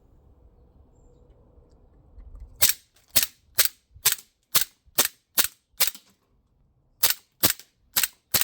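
Cybergun Desert Eagle 50AE CO2 blowback BB air pistol firing in quick succession: after a couple of quiet seconds, eight sharp cracks about two a second, a short pause, then four more.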